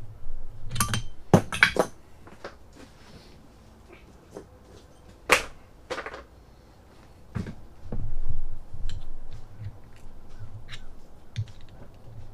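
Metal hand tools clinking and knocking as they are handled: a cluster of sharp clinks in the first two seconds, another loud clink about five seconds in, and quieter ticks and clicks between, from a tap and tap wrench being worked in stripped bolt holes in a mower transmission.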